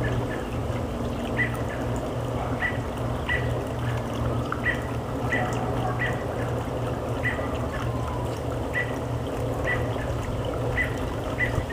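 A small bird repeating a short, sharp chirp about once a second, over a steady hiss and a low hum.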